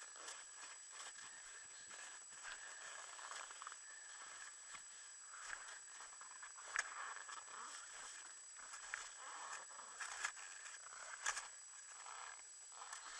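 Footsteps crunching in snow, irregular, with a few sharper crunches in the second half, faint overall.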